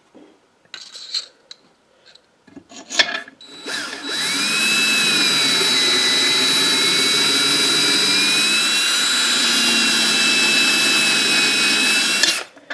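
Power drill turning a reamer through the newly installed valve guide bushing in a 5 hp Briggs & Stratton flathead block. A few clicks and taps as the tool is set in place, then about eight seconds of steady drill running with a whine that wavers slightly in pitch, stopping shortly before the end.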